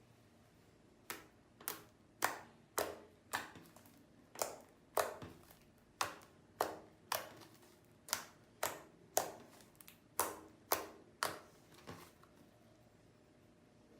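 Homemade toothpaste slime being squeezed and worked in the hands, giving a steady series of sharp sticky pops about two a second that stops shortly before the end.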